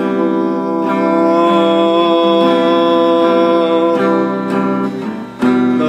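Acoustic guitar song with one long sung note held over the guitar for about five seconds, ending about five seconds in.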